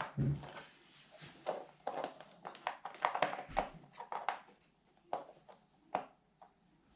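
Irregular clicks, taps and knocks of small hard objects being picked up and set down by hand, about a dozen over a few seconds, thinning out near the end.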